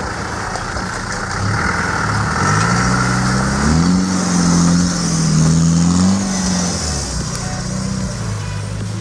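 Land Rover Discovery engine revving as the 4x4 drives through a shallow creek: the engine note climbs about a second and a half in, holds high, then eases back down near the end.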